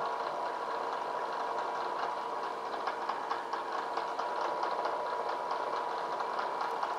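Bridgeport-style vertical milling machine running, a steady motor and spindle hum with a light, irregular ticking over it.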